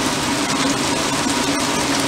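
Heavy thunderstorm rain pouring down steadily, a dense even hiss, with a steady low hum underneath.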